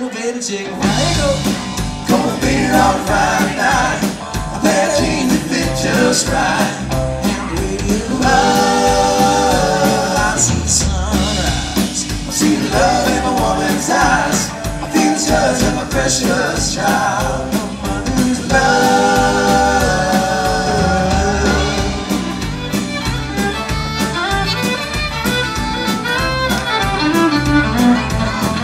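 Live country-rock band playing: drums, bass guitar, electric guitar and fiddle, with singing over the band.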